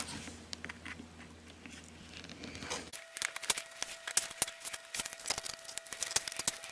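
Plastic snap clips of a laptop's bottom cover clicking and cracking loose as a pocket knife pries along the seam. It is faint at first, then about three seconds in comes a quick, irregular run of sharp clicks.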